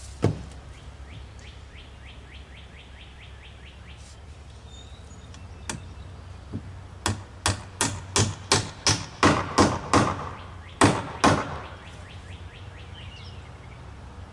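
A hammer striking wood: one knock at the start, then after a pause a run of about a dozen blows, roughly three a second.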